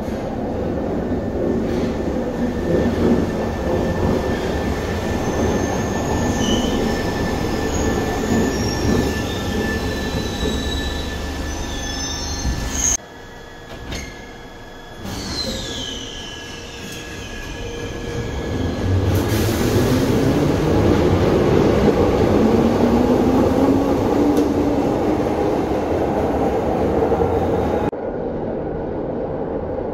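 Glasgow Subway train rumbling into the station with its wheels squealing on the rails. After a cut, a train pulls away: a high squeal falls in pitch while the traction motors' whine rises as it accelerates, and the rumble grows loud, then drops suddenly near the end.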